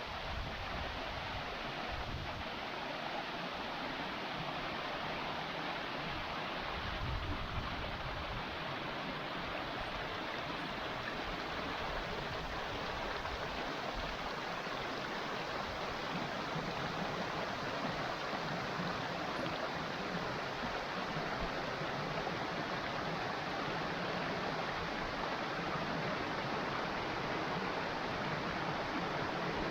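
Water rushing steadily over a waterfall on a small stream, an even, unbroken sound.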